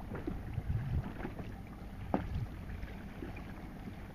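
Wind buffeting the microphone over choppy sea, with small waves slapping and splashing against a small boat's hull; one sharper slap about two seconds in.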